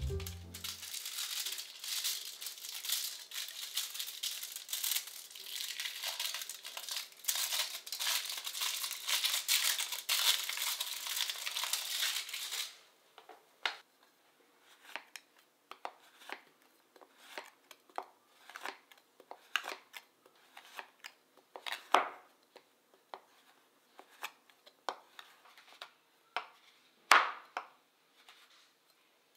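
A chocolate bar's wrapper crinkling continuously as it is unwrapped for the first twelve seconds or so. Then a chef's knife chops the chocolate on a cutting board in separate, irregular chops, two of them louder than the rest.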